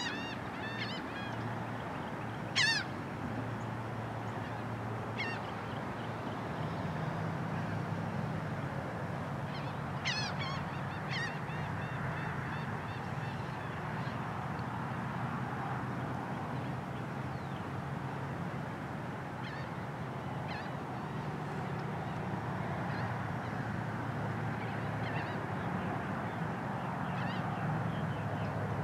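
Birds calling: a few short, harsh, honking calls, the loudest a few seconds in, two more about ten seconds in, and fainter ones later. Under them runs a steady background wash with a low hum.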